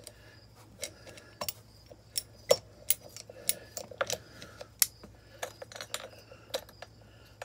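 Irregular sharp metallic clicks and clinks as a thread-cutting tap, gripped with pliers, is turned back out of a steel wheel-hub sleeve.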